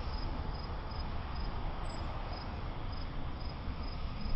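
A cricket chirping steadily, about three short high chirps a second at one pitch, over a low steady rumble.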